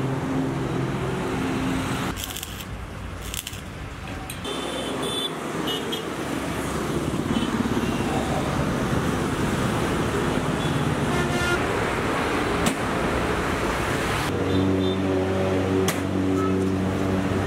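Busy city road traffic: vehicle engines running and passing, with a few short horn toots.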